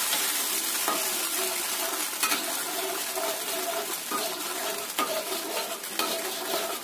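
Garlic-oil sauce thickened with a cornstarch slurry sizzling and bubbling in a pan as it comes to the boil, with a utensil clicking and scraping against the pan a few times.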